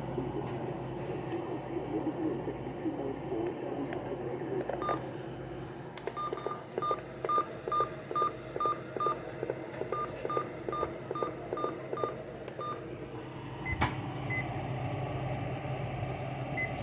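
Two runs of short, high electronic beeps, about three a second, with a brief break between them, over a low steady hum; a single click follows near the end.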